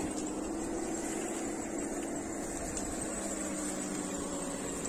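Traxxas TRX-4 RC crawler's electric motor and gearbox whirring steadily as it drives slowly over dry leaves, with a thin high whine above it.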